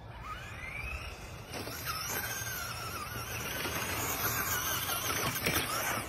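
Traxxas Slash RC truck's motor whining as it drives on pavement, rising in pitch as it speeds up about half a second in, then wavering up and down with the throttle, over a steady hiss of tyres and wind.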